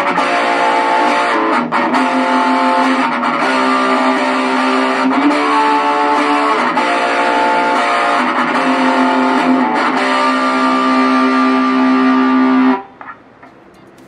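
Electric guitar played through a Belcat G-10 practice amplifier set to its overdrive sound: distorted chords held and let ring, changing every second or two, then cut off suddenly near the end.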